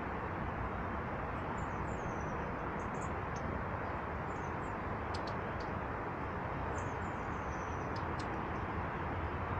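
Small birds at a feeder giving thin, high-pitched calls: scattered short chirps and a few little falling notes, over a steady background rush.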